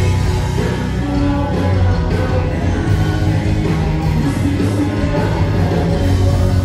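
Rock band playing live: distorted electric guitars, bass and drums, with a male lead singer.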